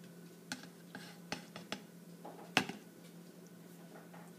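Wire egg dipper and a dyed egg knocking against a plastic cup: a few light clicks in the first two seconds and a sharper one about two and a half seconds in. A faint steady low hum runs underneath.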